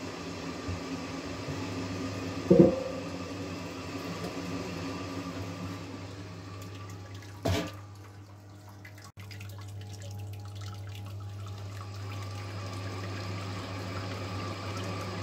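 Home-brew mash recirculation: a pump hums steadily while wort pours from the return pipe back onto the mash and trickles. There is a brief louder sound about two and a half seconds in and a short knock about seven and a half seconds in.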